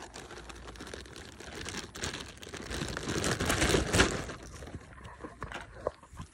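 Close rustling and crinkling handling noise right at the microphone, with scattered clicks, building to its loudest about four seconds in, then thinning to a few clicks before it stops.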